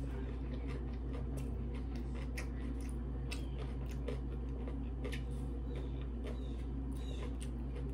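Close-up chewing and mouth sounds while eating: many small wet clicks and smacks scattered through, over a steady low background hum.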